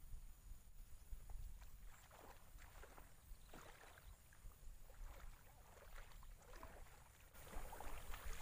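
Faint, irregular sloshing and splashing of shallow water as someone wades through a flooded swamp, with a low rumble underneath.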